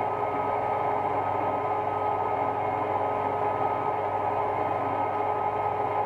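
Metal lathe running steadily, its chuck spinning a brass blank while the cutter takes a light skim pass. A steady machine hum with a few held tones.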